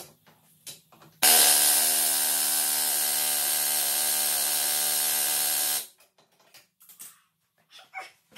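Pneumatic air tool hammering at a car's rear wheel hub in one steady run of about four and a half seconds, starting abruptly about a second in and cutting off sharply. Light knocks of tool handling come before and after.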